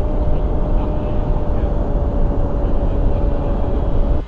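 Electric motor and propeller of a 3D-printed flying wing running at a steady pitch in flight, heard from a camera on board with heavy wind rush over the microphone.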